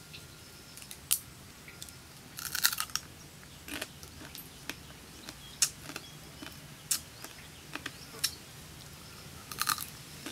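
Fried crab shell cracking and crunching as it is broken apart by hand and chewed: scattered sharp clicks, with short crackly bursts about two and a half seconds in and again near the end.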